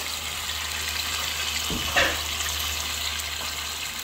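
Wet, freshly washed chicken pieces sizzling in hot oil in a pot: a steady hiss, the water on the meat making the oil spatter, with one short sharp crackle about halfway through.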